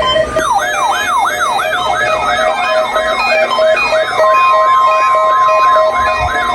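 Weather radio receivers sound an electronic siren alert for the weekly test, a sweep repeating about three times a second. About four seconds in, a steady, high NOAA Weather Radio warning alarm tone joins it.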